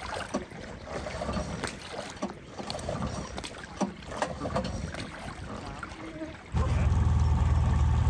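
Scattered knocks and clicks over a watery hiss. About six and a half seconds in, a two-stroke outboard motor with a water-jet unit suddenly sets in, running steadily and much louder.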